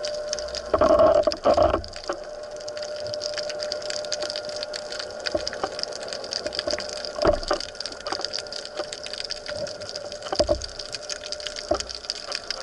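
Water heard from underwater through the camera housing at the surface: a steady watery wash with fine crackling and a faint steady hum, broken by louder gurgling rushes of water about a second in and twice more later on.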